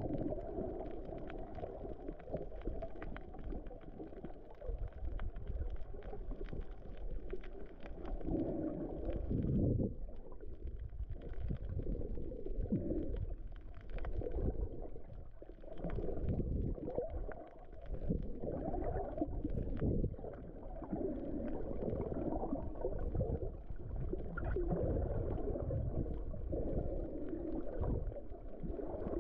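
Water moving around a microphone held underwater: muffled, low rumbling and gurgling that swells and fades unevenly every second or two.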